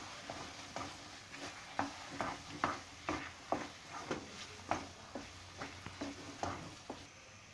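Wooden spoon stirring and scraping thick halwa in a metal pan as it is roasted in ghee with cream just added: short scrapes about twice a second over a faint frying sizzle.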